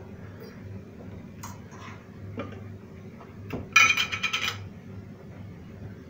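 Light knocks of glass kitchenware on a counter, then about four seconds in a short, ringing, grating clatter as the lid is twisted off a glass honey jar.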